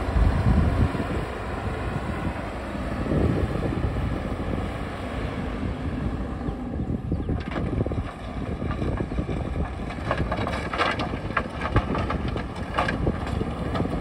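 JCB backhoe loader's diesel engine running steadily. From about halfway through comes a run of sharp knocks and scrapes, thickest near the end.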